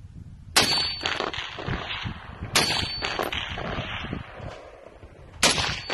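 Three rifle shots from a scoped rifle, about two seconds and then three seconds apart. Each is followed by a long echo that dies away.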